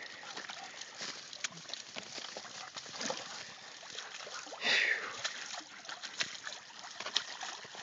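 Muddy creek water sloshing and splashing around a downed wild hog, with one louder splash about five seconds in.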